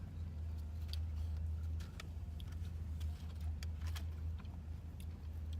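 A steady low hum with a few light clicks and ticks scattered through it.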